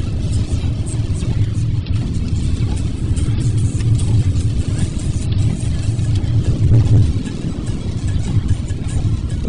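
Steady low rumble of a moving car heard from inside the cabin, tyre and road noise with hiss from a wet road, while music plays along underneath.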